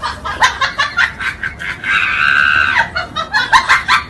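A person laughing hard in short high-pitched bursts, with one long shriek about two seconds in.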